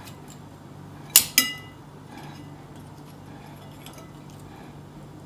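A metal utensil clinks twice against a ceramic plate or bowl, two sharp ringing strikes close together, followed by a few faint taps, over a faint steady hum.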